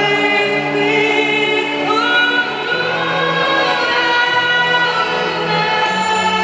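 Live amplified performance of a slow rock ballad: a woman sings long, held notes with smooth glides between them, backed by a bowed string section.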